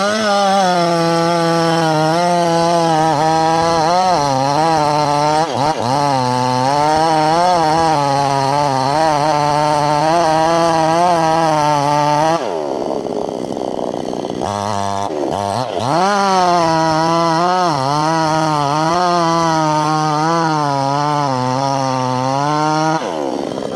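Two-stroke petrol chainsaw with a long bar running at high revs while cutting into a thick tree trunk, its pitch wavering up and down as the chain bites into the wood. A little past halfway the engine drops to a lower, quieter note for a few seconds, then revs back up and cuts on, easing off again just before the end.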